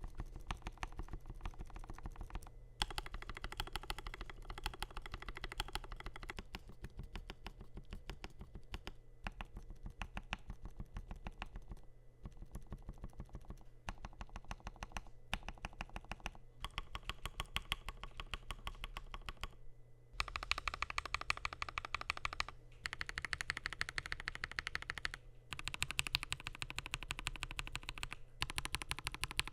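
Continuous fast typing on a Kemove K87 mechanical keyboard with lubed and filmed Gateron Red and Silver linear switches, stainless steel plate and PBT keycaps: rapid key clacks with brief pauses between bursts. The typing gets louder in the last third.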